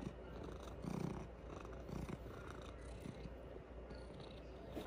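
Long-haired domestic cat purring faintly, a low rumble that swells and eases.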